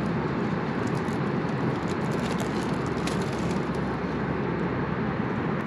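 Steady cabin noise of an Airbus A320 airliner in flight, an even rush of air and engine hum, with a few faint rustles from a plastic food wrapper being handled.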